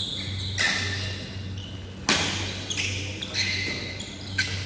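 Badminton hall between rallies: a few sharp knocks, the loudest about two seconds in, and short high squeaks of court shoes on the floor, over a steady low hum.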